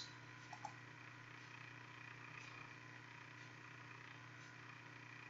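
Near silence: faint steady hum and hiss of the recording, with a few faint short clicks in the first second.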